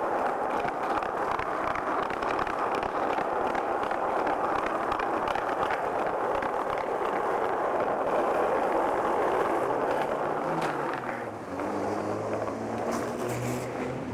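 Skateboard wheels rolling over pavement and tiled floor: a steady rumble with small ticks at the joints, easing off about eleven seconds in.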